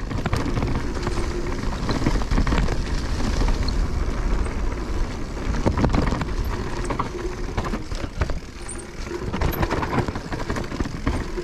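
Mountain bike ridden over a rough dirt trail: constant tyre and trail noise with frequent rattles and knocks over bumps, and wind rumbling on the microphone.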